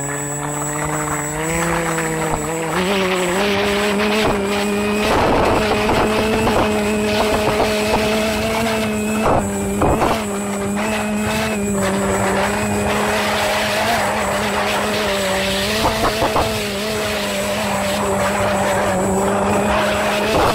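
Multirotor drone's motors and propellers, heard from the drone's own camera: the whine steps up in pitch over the first couple of seconds as it lifts off, then holds a steady hum while it flies.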